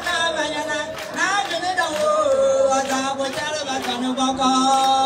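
A group of women singing with scattered handclaps. A leading voice slides between notes, then holds one long note from about four seconds in.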